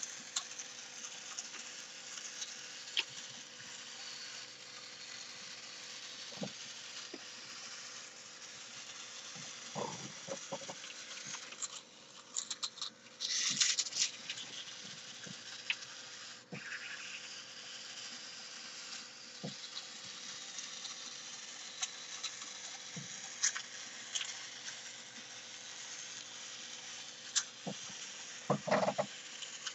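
Small DC gear motors of a breadboard robot car running steadily as it drives over paper, with scattered clicks. A burst of rustling and handling noise comes about twelve to fourteen seconds in, and soft thumps come about ten seconds in and near the end.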